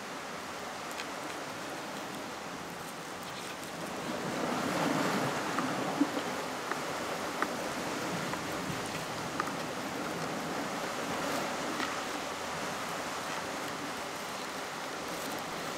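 Sea surf washing against a rocky shore, a steady rush that swells about four seconds in. A few short clicks from a filleting knife on a wooden cutting board.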